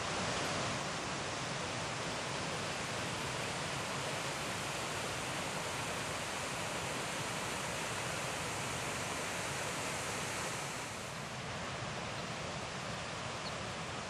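Rushing water of a mountain river tumbling over rocks: a steady, even rush with no birdsong over it, turning slightly duller about eleven seconds in.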